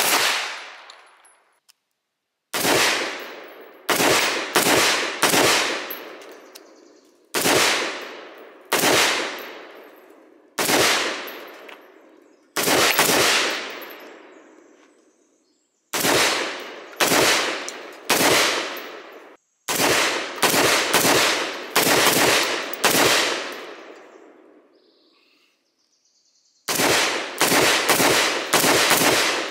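Strings of gunshots from semi-automatic long guns, fired steadily about two-thirds of a second apart in groups of two to six, each shot ringing out with a long echoing tail; short pauses fall between the strings.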